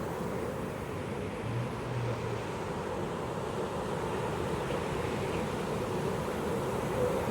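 Pacific ocean surf washing steadily onto a beach, a continuous rushing of waves. A brief faint low hum sounds about a second and a half in.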